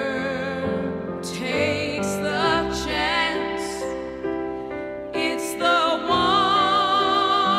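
Background music: a slow song with long held notes, the upper line wavering in vibrato like a singing voice, over instrumental backing.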